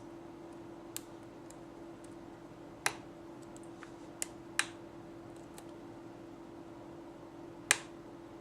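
Lock pick and tension wrench clicking against the pins of a Lori 5-pin mortise cylinder during single-pin picking: about seven sharp, scattered clicks, the loudest near the end, over a steady hum.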